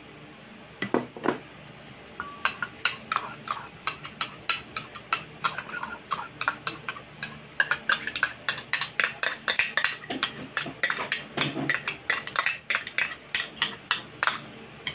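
Metal spoon knocking and scraping against small plastic bowls as mayonnaise is scooped out, a quick run of clicks at about three a second after two separate knocks near the start.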